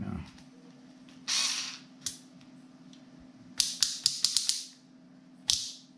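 Torque-adjustment collar of a Teccpo 4V cordless screwdriver turned through its detents: a quick run of about eight sharp ratcheting clicks in about a second, around the middle. Short hissing bursts come before and after it.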